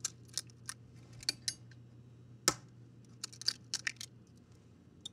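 Eggs being cracked and separated over a glass bowl: scattered light clicks and taps of eggshell, with one sharper crack about two and a half seconds in.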